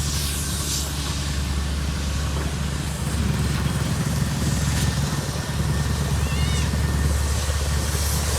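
Heavy diesel engine of road-paving machinery running steadily at a constant speed, with a few brief high chirps a little past the middle.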